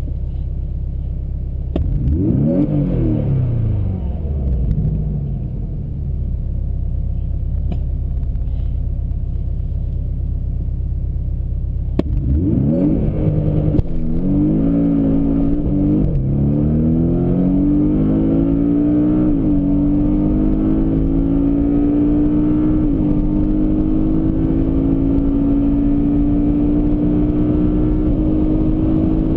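Porsche 718 Boxster S's turbocharged flat-four idling, revved once briefly, then brought up and held at about 5,000 rpm on launch control. It then launches at full throttle, the pitch climbing steadily through first to fourth gear, with three quick PDK upshifts, each a short dip in pitch.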